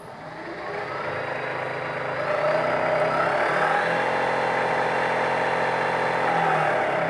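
A homemade surface grinder's spindle motor, its speed set by hand on a servo-tester knob. It spins up, getting louder over the first few seconds, runs steadily, then begins to wind down right at the end as the knob is turned back.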